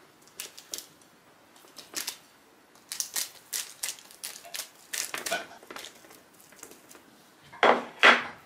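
Hands pressing oiled dough buns flat on a parchment-lined baking tray: scattered soft taps and crinkles of the baking paper. Two louder knocks close together near the end.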